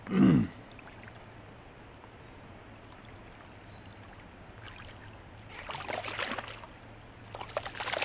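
A hooked trout splashing and thrashing at the water's surface in two bouts, about five and a half and seven and a half seconds in, as the angler reaches to land it by hand. A short falling exclamation from a man at the very start is the loudest sound.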